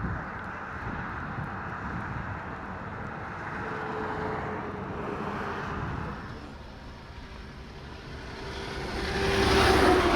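Wind rushing, then a vehicle passing close by: the noise swells to its loudest about nine and a half seconds in and fades, with a steady hum that drops slightly in pitch as it goes past.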